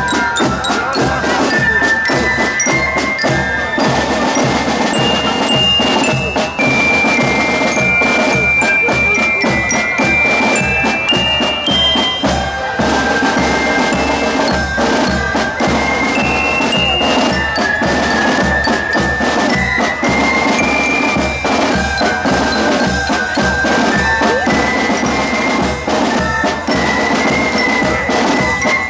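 Marching drum-and-lyre band playing: a bell lyra carries the melody in clear, ringing notes over snare drums and a steady bass-drum marching beat.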